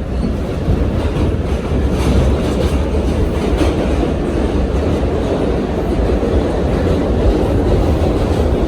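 New York City subway train running, a steady loud rumble of the car with wheel clatter on the rails, heard from inside the car.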